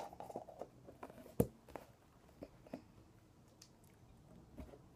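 Handling sounds of a small tin and its plastic lid: a run of light clicks and knocks, thickest in the first two seconds, with one sharper knock about a second and a half in.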